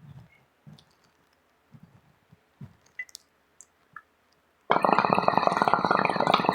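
Bong water bubbling hard for about two seconds as smoke is pulled through it, starting about three-quarters of the way in, after a few faint soft taps and clicks.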